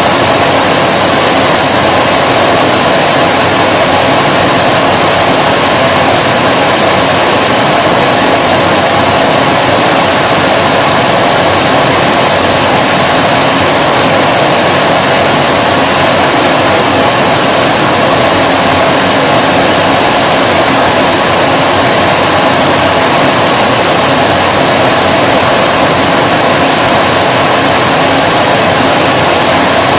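Vacuum cleaner motor running steadily, a loud, even whooshing hum that does not change.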